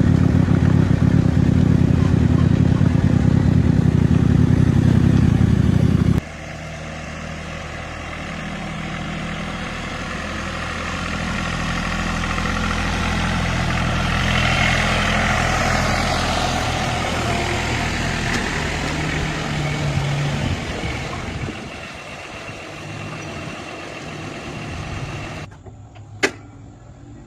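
Motor vehicle engine running, heard in several cut-together clips: a loud steady run that stops abruptly about six seconds in, then a quieter running engine with a hiss that swells and fades, and a single sharp click near the end.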